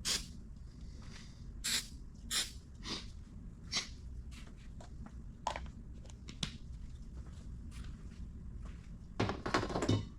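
Short squirts of glue-accelerator spray, about five in the first four seconds, then a brief cluster of knocks and rustling from handling near the end.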